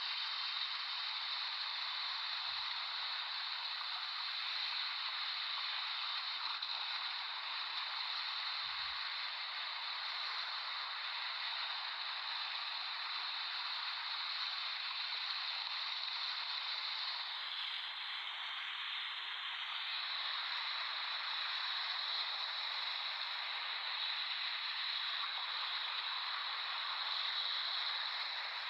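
Ocean surf: a steady, continuous wash of breaking waves, swelling slightly now and then.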